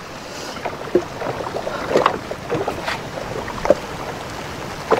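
Scattered knocks and clatter in a canoe as bodó catfish are worked out of a gillnet, over a steady hiss of wind and rain.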